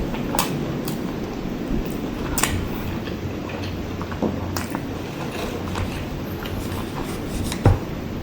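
Close-miked chewing of soft, fatty soy-braised pork adobo and rice: a continuous wet, mushy chewing sound broken by scattered sharp mouth clicks.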